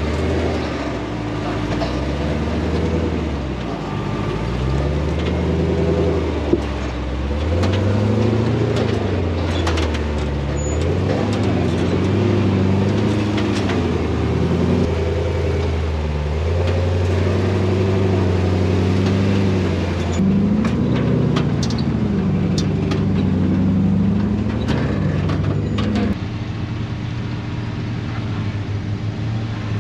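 Off-road truck engine working slowly over rock, its revs rising and falling again and again under varying load, with scattered clicks and knocks. Near the end it settles to a steadier, lower note.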